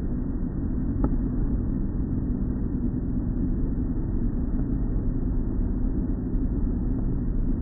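Automatic car wash tunnel equipment running, a steady low rumble heard muffled through glass, with a faint click about a second in.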